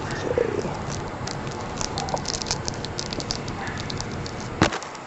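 Plastic trading-card pack wrapper crinkling and crackling as it is handled, with one sharp click near the end, over a steady background noise.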